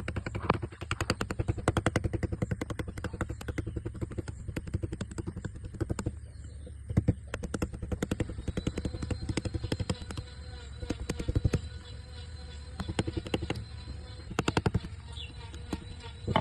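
Hand carving tool being struck into wood: quick sharp taps, several a second, in runs with short pauses, over a steady low hum.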